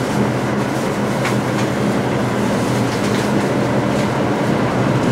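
Route bus's diesel engine running steadily under way, with road and cabin noise heard from inside the bus just after moving off from the stop.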